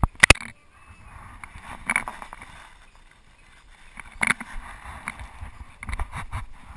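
Camera handling noise while the camera is moved and repositioned: a few sharp knocks and clicks, loudest at the very start and about four seconds in, with rubbing and rustling between them.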